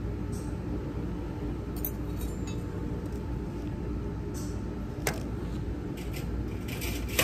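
Stainless steel surgical instruments clinking and clicking as they are handled, with a sharp click about five seconds in and several more near the end, over a steady low hum.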